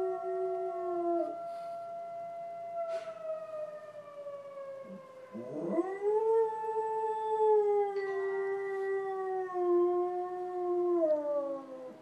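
Springer spaniel howling in response to police sirens: long drawn-out howls, one swooping up from a low pitch about five seconds in and held, then trailing down and stopping near the end.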